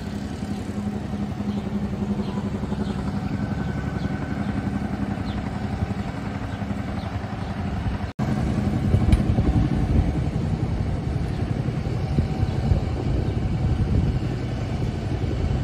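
Steady low rumble of outdoor city street noise, with a brief dropout about eight seconds in.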